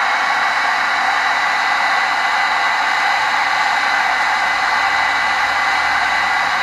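Old hairdryer running steadily at full speed, a loud even rush of air with a constant high whine from its motor.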